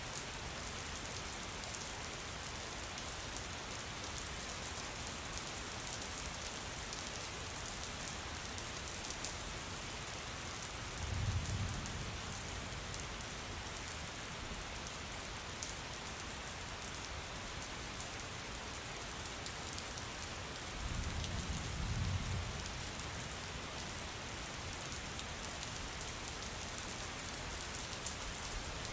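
Steady rain falling, an even hiss of drops. Two brief low rumbles of thunder come about eleven and twenty-one seconds in.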